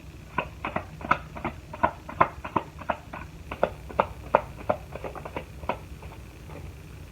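A deck of cards being handled by hand: a run of short, light clicks and slaps at an irregular pace, about three a second, stopping about six seconds in.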